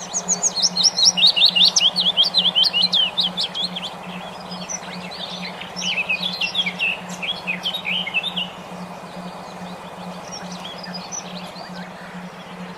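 A songbird sings a fast trill of rapid, sharp high notes, then a second, lower-pitched run of notes, then only faint chirps. Under it a steady low pulsing hum plays throughout, the brainwave-therapy tone meant to stimulate songbirds to sing.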